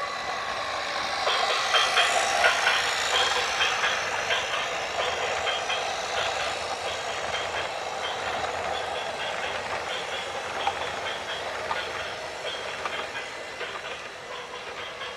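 A train running past: a steady rushing rattle with many small clicks and clacks, fading slightly toward the end.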